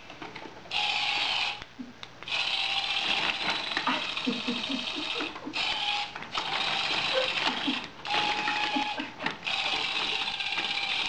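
Tiny motor of a remote-controlled skitterbot toy whirring as it is driven across the floor, starting and stopping in bursts of about one to three seconds, five times over.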